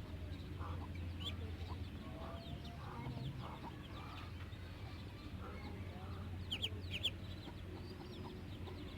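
Chickens clucking softly in scattered short calls, with a couple of brief high chirps about two-thirds of the way through, over a low steady hum.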